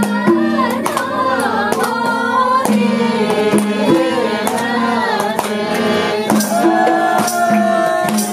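Nepali folk song: a singing voice over a steady low note, with regular drum strokes.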